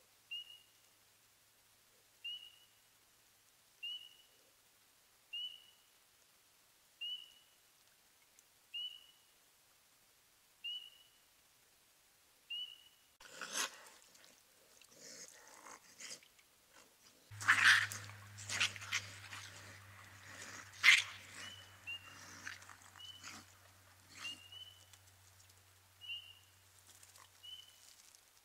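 Raccoons fighting: harsh, noisy cries break out about halfway in, peak twice a few seconds apart, then die down. A short high peep repeats about every second and a half before and after, and a low steady hum comes in during the fight.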